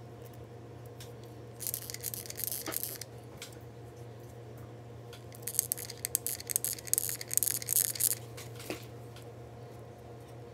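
Seashells and a barrette clip handled while hot-gluing: crackly clicking and rustling, once about two seconds in and again for a few seconds in the middle, over a steady low hum.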